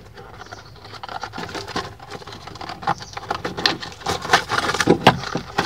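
Hands rummaging through a box of loose parts and debris, with irregular clicking, rattling and rustling that grows busier in the second half.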